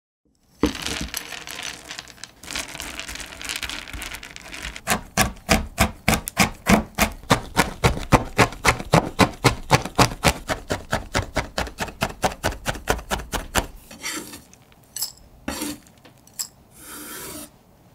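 Knife chopping a block of 65% dark chocolate on a cutting board: crackly cuts at first, then quick, even chopping at about four or five strokes a second. Near the end the blade scrapes the chopped chocolate across the board into a glass bowl, with a few knocks and clinks.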